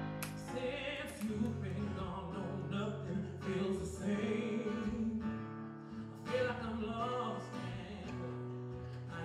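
Music: a song with a singing voice over held instrumental notes.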